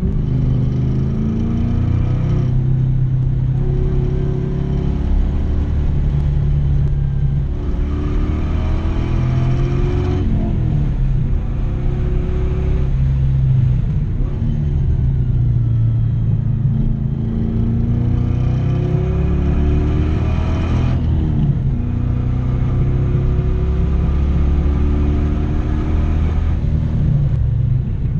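LS1 5.7-litre V8 in a BMW 318ti driven hard on a race track, the revs climbing in long sweeps and falling back several times as it accelerates, shifts and lifts for corners.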